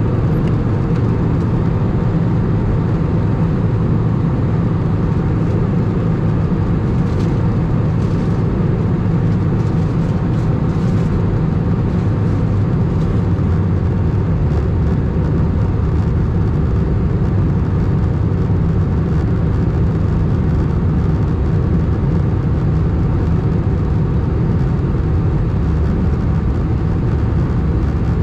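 Steady cabin noise inside an Airbus A319, heard from a window seat over the wing: the even rush of airflow and the jet engines during descent.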